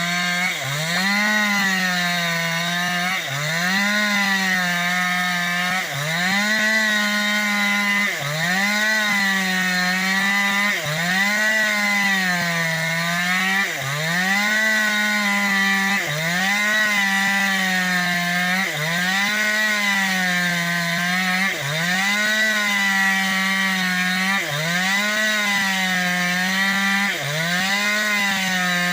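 New West 568 two-stroke chainsaw running at high revs while ripping bayur wood lengthwise into planks. Its engine pitch dips briefly and recovers about every two and a half seconds as the chain bites into the cut.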